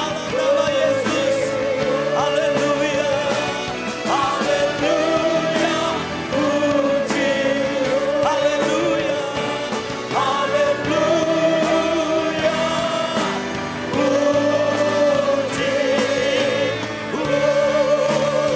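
Live gospel worship song: singers on microphones lead with musical accompaniment, in sung phrases a few seconds long with wavering held notes.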